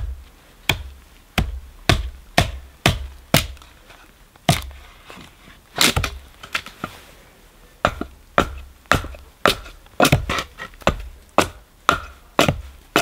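Small hatchet chopping a split piece of dry cedar, trimming it into a hearth board: short, sharp blows about two a second, with a brief pause a little after the middle.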